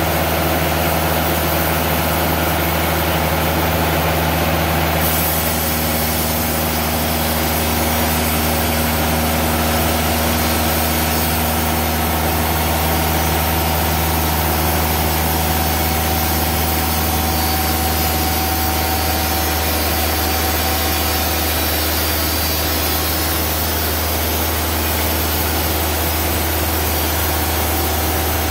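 Timberking 2000 band sawmill running steadily at cutting speed, its engine giving a strong low hum. About five seconds in, a higher hiss joins it as the band blade cuts into the cedar log.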